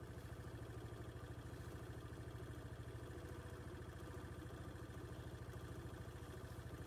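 A vehicle engine idling steadily: a low, even hum with a fast regular throb.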